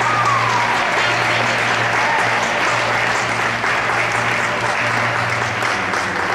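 Audience applauding steadily in a large indoor arena, with music playing underneath.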